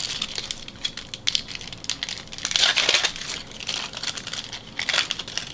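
A trading-card pack wrapper being torn open and crumpled by hand: irregular crinkling and crackling, busiest about halfway through.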